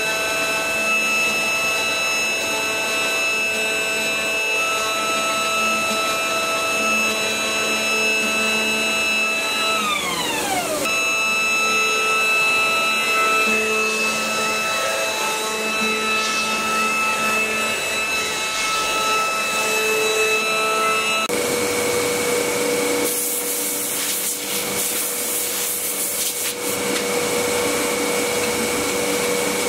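CNC router spindle running with a steady high whine as its bit cuts into a wooden board. About a third of the way in the whine's pitch falls away and then comes back steady; in the last third it gives way to a different steady machine hum with bursts of rougher noise.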